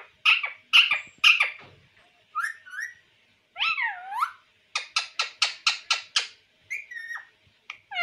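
Male rose-ringed parakeet calling: a string of whistled calls gliding up and down in pitch, with a quick run of about seven sharp notes, some five a second, in the middle.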